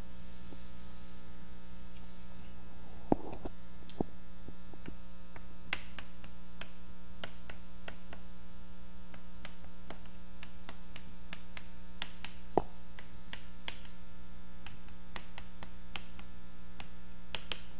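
Steady electrical mains hum, with scattered short taps and clicks of chalk writing on a blackboard; a few taps, about three and four seconds in and near twelve and a half seconds, are louder.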